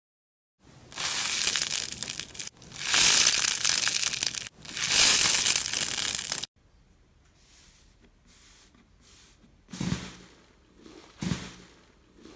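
Slime being handled close to the microphone, making crackling, tearing noises in three long stretches, then fainter crackles and a few short squelchy pops near the end.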